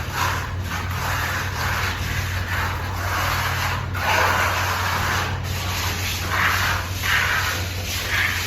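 Plastering trowel scraping and spreading wet plaster across a wall in repeated swishing strokes, each under a second, over a steady low hum.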